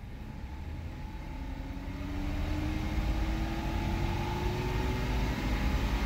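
BMW N52 straight-six engine being revved up gently off idle, its hum rising slowly in pitch and getting louder, heard from inside the cabin. The engine idles rough with a misfire that the mechanic traces to a vacuum leak.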